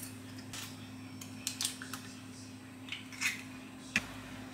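A handful of faint, sharp clicks and taps as eggs are cracked and the shells handled over stainless steel bowls, over a steady low hum.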